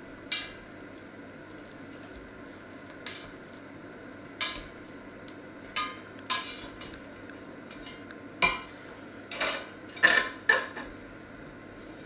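A metal utensil knocking and scraping against the inside of a stainless steel stockpot as it is worked around the bread in it. About ten separate sharp clinks come at irregular intervals, closer together and loudest near the end.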